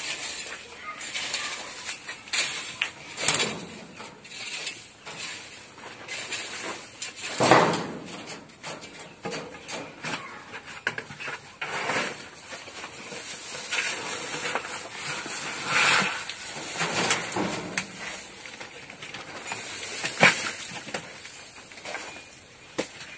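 Long-handled rake scraping and dragging across a dry, sandy dirt floor in irregular strokes.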